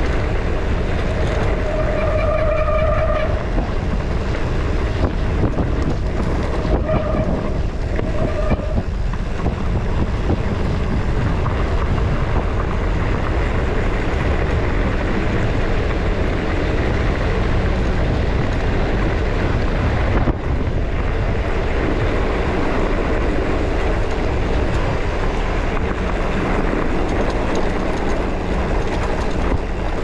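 Mountain bike riding at speed: steady wind rumble on the helmet or handlebar camera's microphone mixed with tyres rolling over the road surface. A few short high squeals come within the first nine seconds.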